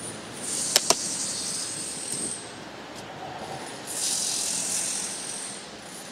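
Bicycle ride noise: the bike rattling and its tyres running over paving, with two sharp clicks about a second in and a high hissing rush from about four to six seconds.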